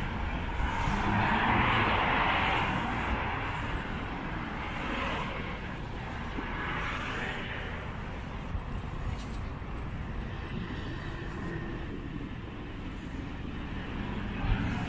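Outdoor noise during a bicycle ride: steady wind rumble on the microphone with traffic noise that swells in the first few seconds and again a few times after.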